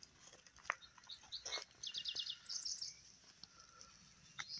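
Wild birds chirping and calling, with a quick run of short repeated notes about two seconds in.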